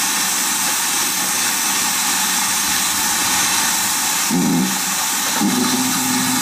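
Steam locomotive 7828, a GWR Manor class 4-6-0, standing and hissing steam loudly and steadily. A brief low sound comes about four seconds in, and a steady low hum joins about a second later.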